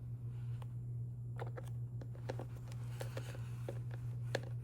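Scattered small clicks and ticks of a hand screwdriver driving a hatch screw into a foam RC jet, over a steady low hum.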